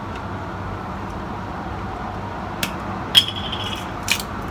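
Pepper grinder being picked up and handled: a few sharp clicks, and one louder metallic clink with a short ring about three seconds in. Near the end come the first clicks of grinding.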